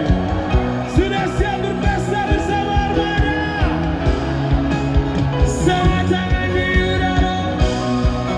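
Live pop-rock band playing over a steady drum beat, with singing that glides up and down in pitch, loud through the concert sound system.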